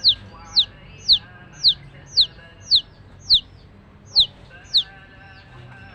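Baby chick peeping: about nine loud, short, high peeps, each sliding down in pitch, at roughly two a second, stopping a little before the end.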